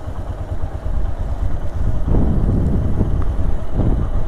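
Royal Enfield Himalayan's single-cylinder engine running as the motorcycle rides along, with wind buffeting the microphone, the rush growing louder about two seconds in.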